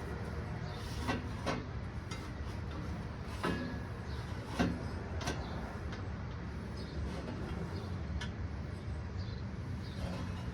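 Scattered knocks and clunks of hands-on work around a car's engine bay, over a steady low hum.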